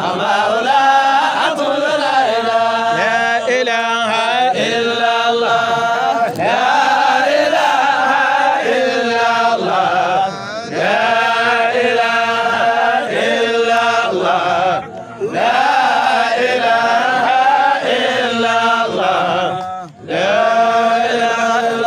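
Sufi devotional chant sung by a male voice: long drawn-out melodic phrases over a steady held drone note, broken by brief pauses about 10, 15 and 20 seconds in.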